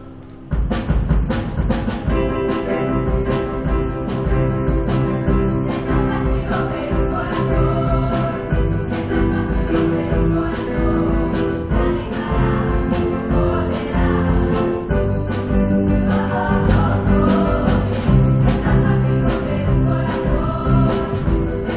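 A live band and choir performing a song: drum kit keeping a steady beat under guitars and held chords, with a group of voices singing. The full band comes in loudly about half a second in.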